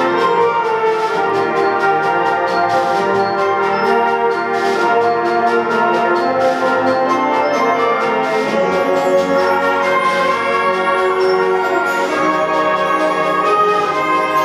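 High school concert band playing, brass prominent over woodwinds, holding full chords that shift from one to the next.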